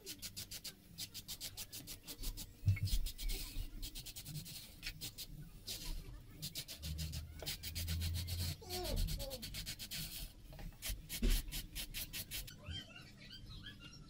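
Electric nail drill grinding down an acrylic nail on a practice hand, in many short scraping passes that stop near the end.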